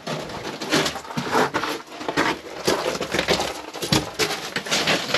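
Footsteps crunching and scuffing on loose rock rubble in a narrow mine tunnel, a stroke about every half second to second.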